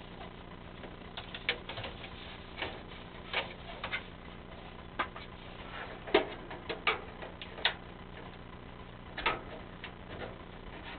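Irregular sharp clicks and knocks of a furnace vent fitting being worked loose and pulled down by hand, the part pushed up firmly in place, over a steady low hum.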